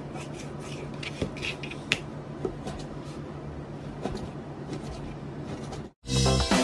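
Kitchen knife slicing raw pork on a plastic cutting board: soft scraping cuts with a few light taps of the blade on the board, over a steady low hum. About six seconds in it cuts off and a loud intro jingle begins.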